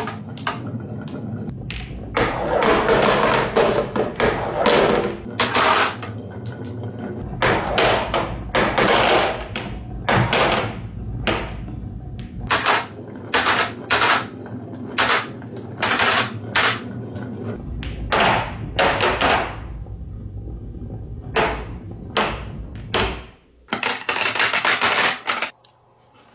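Glass marbles rolling down a grooved wooden marble run, clattering against each other and the wood, and dropping into the plastic bed of a toy dump truck. It comes as many separate rolls, each about a second or less, with sharp clicks among them and a few short pauses.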